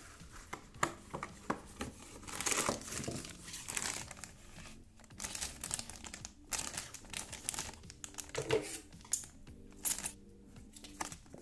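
A cardboard Happy Meal box being opened, then a sealed plastic toy bag crinkled and turned in the hands, with many sharp crackles and rustles.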